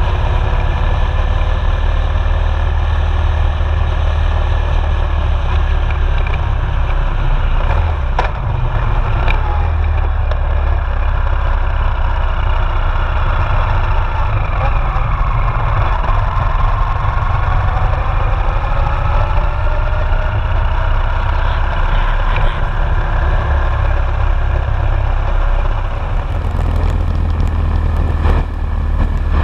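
Motorcycle engine running at road speed under heavy wind rumble on the microphone, its note slowly rising and falling with the throttle.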